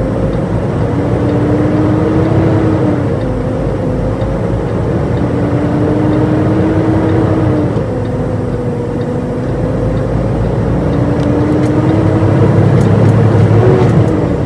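Semi-truck's diesel engine pulling a loaded trailer. Its pitch climbs slowly and then drops sharply three times as it shifts up through the gears.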